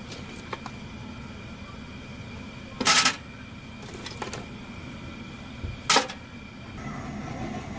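A gloved hand working in the open firebox of a Winnerwell Woodlander Double View wood-burning stove. There are a few light clicks, a short louder scrape about three seconds in, and a sharp knock about six seconds in.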